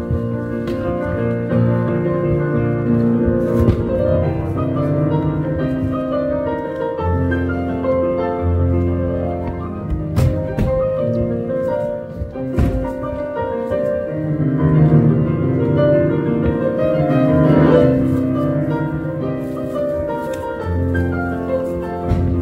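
Live solo piano playing the show's exit music, a flowing melody over sustained bass notes.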